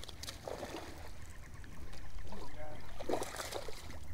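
Water splashing and sloshing beside a fishing boat, with a splash near the start and another about three seconds in, over a steady low rumble of wind and boat.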